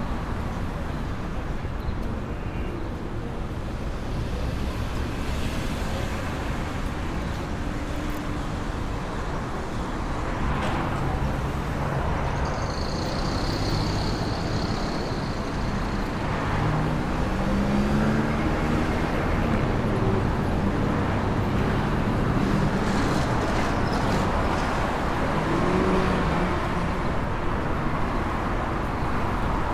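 City street traffic: a steady rumble of cars and other motor vehicles running past, with a thin high tone lasting a few seconds around the middle.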